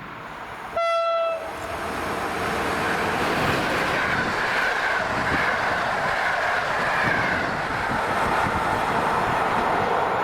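A train gives one short horn blast about a second in, then comes through with loud, steady rolling rail noise that builds over the next couple of seconds.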